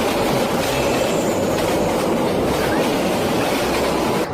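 Loud, steady mechanical rumbling and clattering noise that cuts off suddenly near the end.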